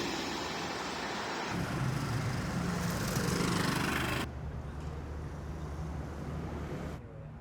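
Vehicle and road traffic noise with a low engine hum, in short recordings cut together, the sound changing abruptly about one and a half, four and seven seconds in.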